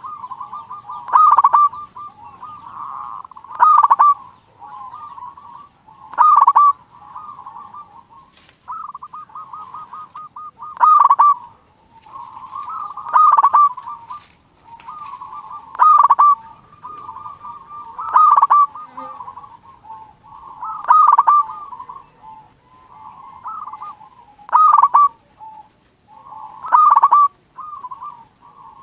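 Zebra dove (perkutut) cooing: a loud staccato cooing phrase every two to three seconds, with softer rolling coos in between.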